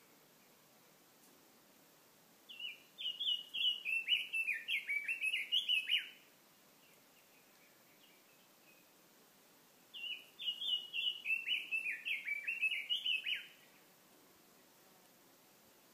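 A songbird sings two phrases, each about three and a half seconds of quick, high, falling notes, the second starting about seven seconds after the first. A faint, steady stream murmur runs underneath.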